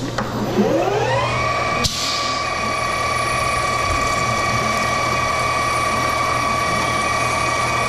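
Metal lathe spindle, driven through a VFD, spinning up: a gear whine that rises in pitch over about the first second and a half, then runs at a steady high pitch. There is a single sharp click about two seconds in.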